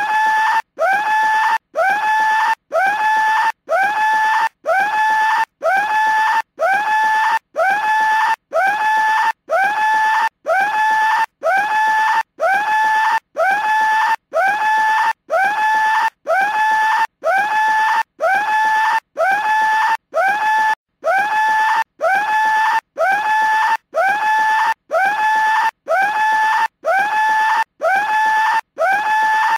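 Cartoon skull telephone ringing with a high scream, repeated about three times every two seconds with short gaps. Each scream swoops up at the start and then holds its pitch.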